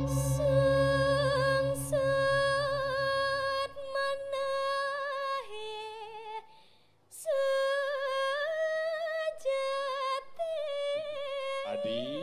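Solo voice singing a slow Balinese vocal line with long, wavering held notes, over the low pulsing hum of a struck gamelan gong that dies away within the first few seconds. The singing breaks off briefly about seven seconds in, then goes on.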